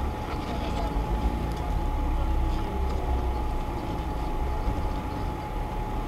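Off-road vehicle's engine idling steadily, a low rumble heard through the dashcam inside the cab, with a constant thin high whine over it.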